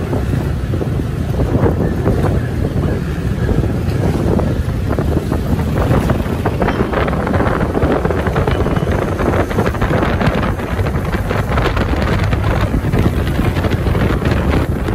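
Wind buffeting the microphone over the steady rumble of a moving road vehicle in traffic.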